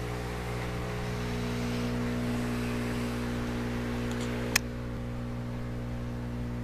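Steady buzzing hum of the hydroponic system's electric pumps, an aquarium-style air pump and a water pump run full time. A soft hiss over the hum drops away after a single sharp click about four and a half seconds in.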